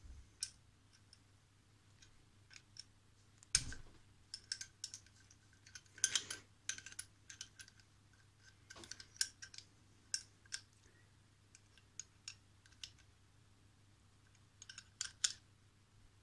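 Irregular small metal clicks and clinks as a compression-type PL259 coax plug is handled and screwed together with open-ended spanners, with a louder knock about three and a half seconds in.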